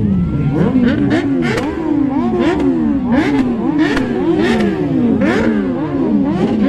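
Superbike engine revved in quick repeated throttle blips, about two a second, each rising and falling in pitch, with a sharp crack at the top of many of the blips.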